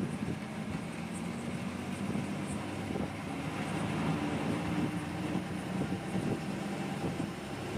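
Engine and road noise of a moving KSRTC Sarige bus, heard from inside the cabin: a steady drone with an engine hum that grows a little stronger around the middle.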